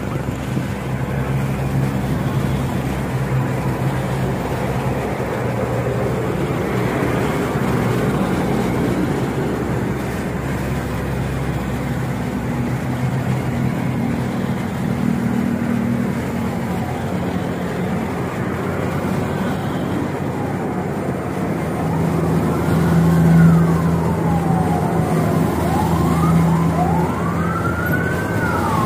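Engines of military trucks and street traffic running as they drive past. From about twenty seconds in a siren wails, rising and falling, and switches to a fast yelp near the end.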